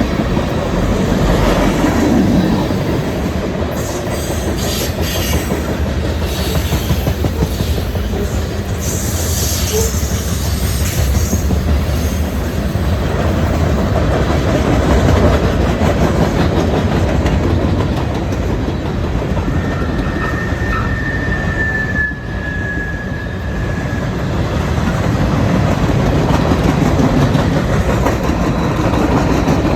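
Freight train rolling past, a steady rumble of wheels on rail, with a thin high wheel squeal lasting a few seconds about twenty seconds in.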